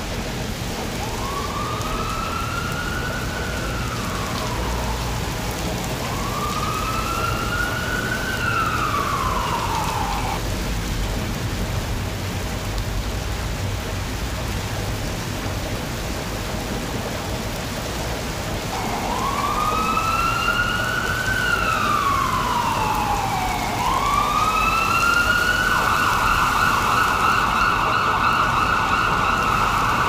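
Ambulance siren wailing in slow sweeps that rise and fall, over steady rain. Two sweeps, a pause of several seconds with only the rain, then two more sweeps, the last held on a high note until it cuts off near the end.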